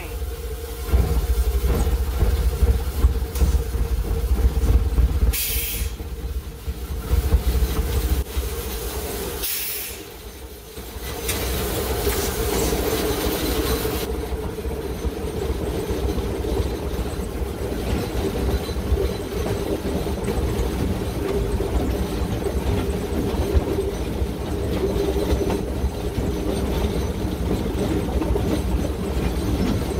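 Steam locomotive heard from inside its cab while under way: a steady low rumble with a steady hum, short bursts of steam hiss about five and nine seconds in, and a longer hiss from about eleven to fourteen seconds.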